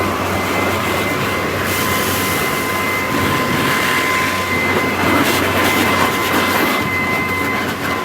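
Ryobi 40-volt battery-powered backpack blower running: a steady rush of air with a constant high fan whine.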